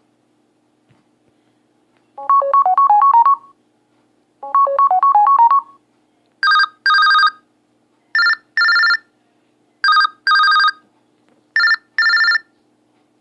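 Smartphone ringtones playing one after another as previews. About two seconds in, a short melody of quick stepped notes plays twice. Then a different tone gives paired rings, like an old telephone ring, repeating four times about every 1.7 s.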